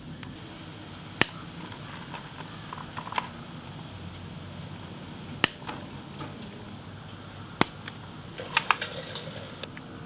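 Diagonal side cutters snipping through thin wiring-harness wires: four sharp snips about two seconds apart, with a few fainter handling clicks near the end.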